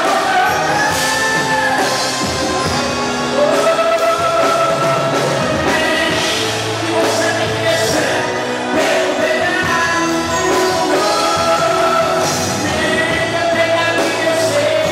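A live gospel praise band playing, with a sung lead vocal over a steady drum beat.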